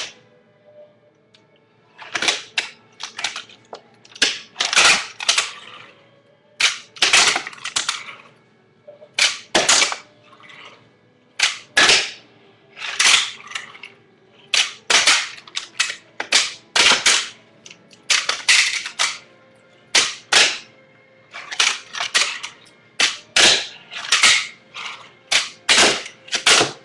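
Fingerboard being popped and landed on a hard tabletop during tricks: sharp clacks in quick clusters of two to four, repeating every second or two.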